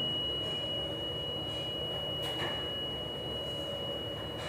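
Steady machinery hum with a constant high-pitched whine, and a faint clatter a little past two seconds in.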